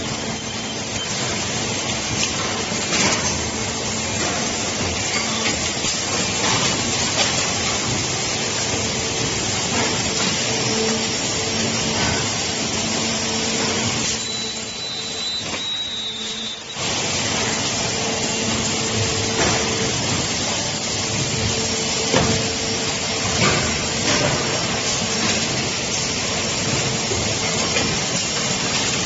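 Injection molding machine with a side-entry take-out robot arm running: a steady, noisy machine drone with a low hum and occasional short knocks. About halfway through it drops quieter for two or three seconds, then resumes.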